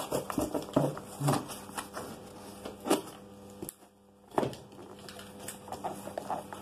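Corrugated cardboard box being torn and bent open by hand: irregular rips and crackles, with a short lull about four seconds in.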